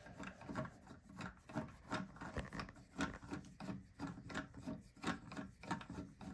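Screwdriver turning a long screw into a toilet seat's plastic hinge bolt: a faint rasping scrape with each turn, about three a second.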